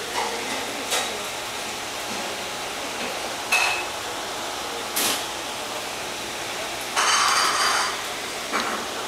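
Steady hiss with about six short, sharp clinks and knocks spread through it; one about three and a half seconds in rings briefly, and a rougher scraping sound lasts most of a second about seven seconds in.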